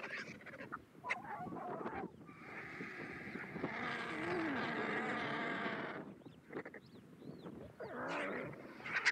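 Vultures squabbling over a carcass with harsh calls. About two seconds in, one long drawn-out squealing call lasts some four seconds, and shorter calls come near the end.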